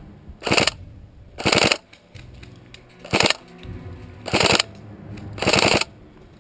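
Airsoft electric rifle (AEG) firing five short bursts in semi-rapid succession, each a fraction of a second long, about one a second.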